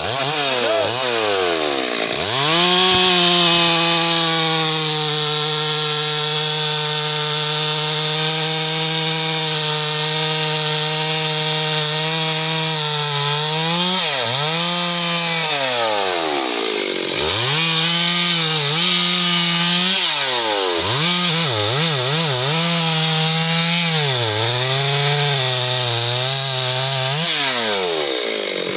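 Stihl two-stroke chainsaw cutting through a teak log. It revs up about two seconds in and holds a steady pitch under load for about ten seconds, drops back twice, then revs up and down in quick blips before easing off near the end.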